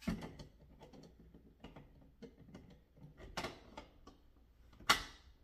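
Clicks and knocks of a blender's plastic jar and lid being fitted and seated on the base, with a sharp knock about five seconds in, the loudest of them. The blender motor is not running.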